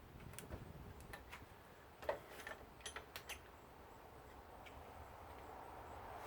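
Faint, scattered clicks and light taps of tools and small metal parts as a water heater valve is worked apart by hand. They come irregularly for about three and a half seconds, then stop.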